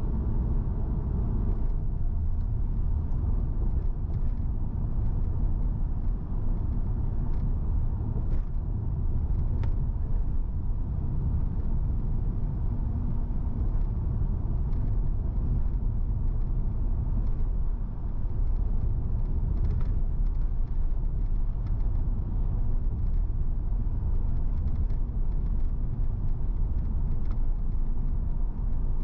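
A car driving at a steady pace: a low, even rumble of road and engine noise, with a few faint ticks.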